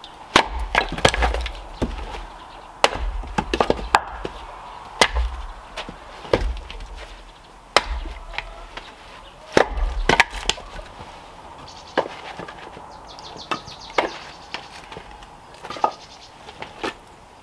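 Axe splitting firewood rounds on a chopping block: a series of sharp, irregularly spaced chops and cracks of wood splitting, with split pieces knocking together as they fall and are thrown aside.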